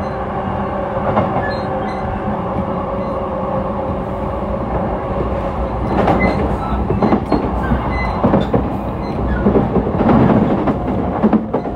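JR East E233 series electric train heard from inside a motor car running between stations: a steady hum from the MT75 traction motors and wheels over a rumble. From about six seconds in, the wheels clatter louder and irregularly over rail joints.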